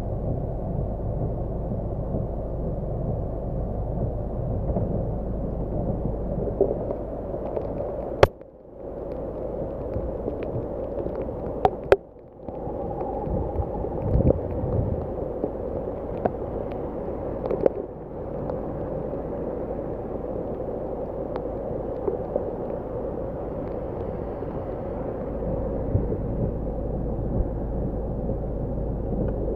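Heavy rain on a car, heard as a steady muffled rushing through a microphone that has water in it. About eight and twelve seconds in, a sharp click cuts the sound out for a moment.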